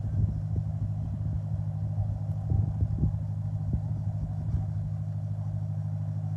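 A motor vehicle engine running steadily with a low hum, with several short knocks or thumps, most of them about halfway through.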